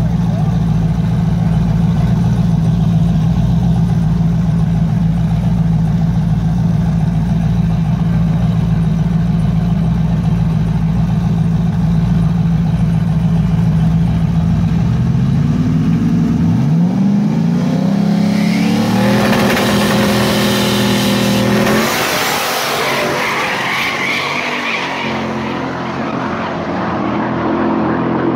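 Two boosted drag cars, a Fox-body Mustang and a turbocharged Chevy S10 pickup, idling loudly side by side at the line. About 16 seconds in they launch: the engine pitch climbs steeply and steps up as they accelerate hard. A rush of engine and tyre noise follows, which fades as they pull away.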